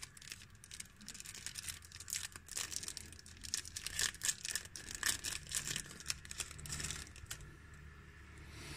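Thin clear plastic packet crinkling and rustling as a sheet of dust-absorber stickers is handled and slid out of it. It comes as quick crackles, busiest through the middle, and it thins out near the end.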